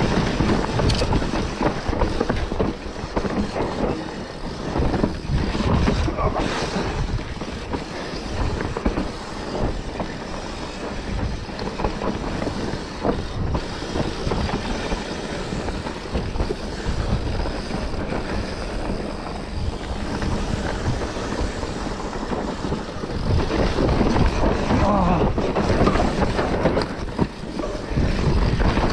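On-board ride noise from an enduro race run over rough ground, with wind on the microphone. It gets louder and busier about three-quarters of the way through.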